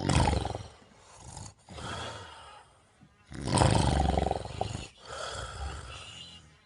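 Loud snoring: two harsh, rattling snores about three seconds apart, each followed by a quieter rasping breath.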